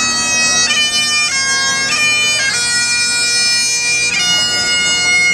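Bagpipes playing a tune over a steady drone, the melody stepping from note to note every second or so.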